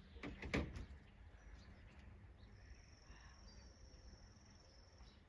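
Quiet outdoor background with a brief knock about half a second in, then a bird's high, even trill held for nearly three seconds.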